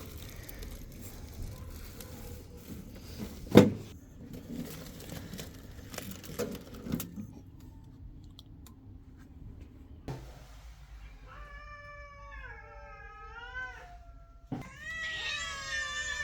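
A cat meowing: two long drawn-out meows in the second half, the second one louder and running on. A sharp knock comes about three and a half seconds in.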